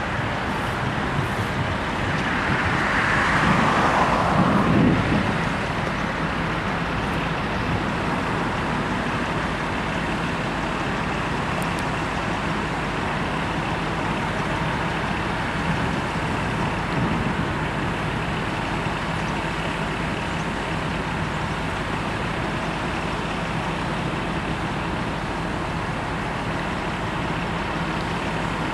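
Steady road traffic noise, with one vehicle passing close about three to five seconds in, its sound falling in pitch as it goes by.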